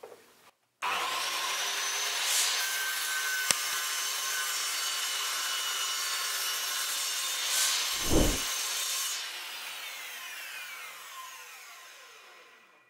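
Metabo KGS 216 M sliding mitre saw starting up abruptly and running at full speed as its blade is lowered into a wooden strip to cut a shallow, depth-limited slot, louder twice as the blade bites into the wood. After about nine seconds the motor is switched off and spins down, its whine falling steadily in pitch.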